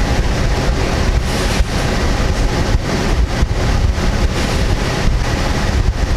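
Steady low rumble and hiss of wind buffeting the microphone through an open car window, over a car idling.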